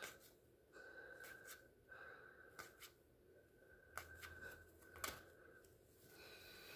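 Baseball trading cards being flipped through by hand, the cards sliding and flicking against one another with faint soft rustles and clicks. Sharper flicks come about four and five seconds in.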